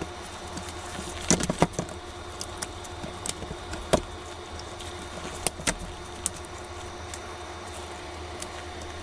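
Scattered light clicks and taps of small tools and metal parts being handled on an open laptop during disassembly, with a faint steady hum underneath.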